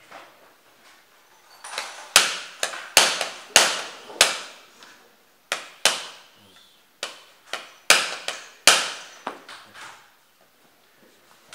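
Small hammer tapping a pin punch to drive a pin out of a Walther PPQ M2 pistol resting on a wooden block: about a dozen sharp metallic taps, each with a short ring, in uneven groups. The pins sit tight in a new pistol, so it takes repeated blows.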